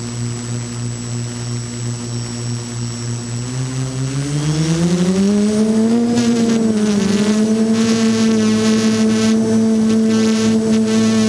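DJI F330 Flame Wheel quadcopter's electric motors and propellers humming at idle after arming, then throttling up: the pitch rises to about double about four seconds in as it lifts off, then holds steady in hover.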